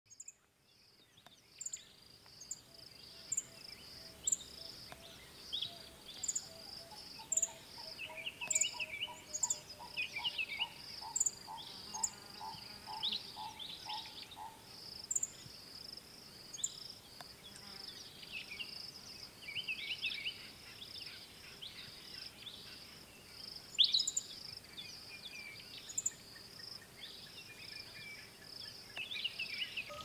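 Insect chorus with a rapid, steady pulsing trill, and several wild birds calling over it: short sharp calls repeated about once a second, quick falling twitters, and for several seconds a bird's even series of lower notes. The sound fades in during the first second or so.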